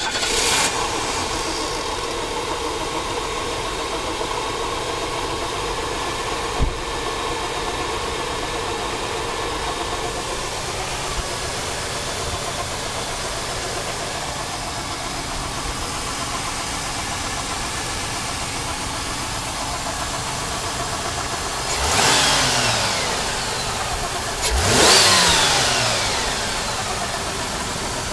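Buick LeSabre's 3800 V6 engine starting and then idling steadily, revved twice near the end, the second rev higher.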